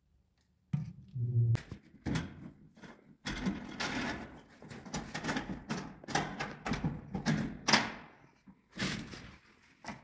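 Irregular knocks, thuds and rattles as a plastic bucket lid and corrugated vacuum hoses are handled and set down.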